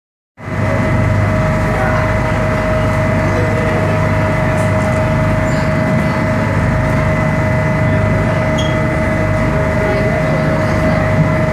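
Tour boat engine running steadily, a constant low drone with a steady high whine over it.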